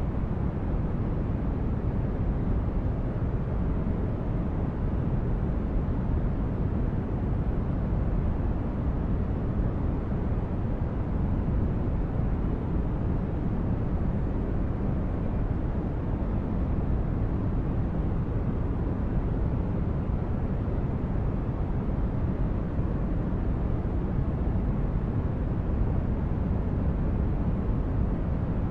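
Steady rumbling noise from a sleep-aid noise track, strongest in the bass and thinning out toward the treble, unchanging throughout.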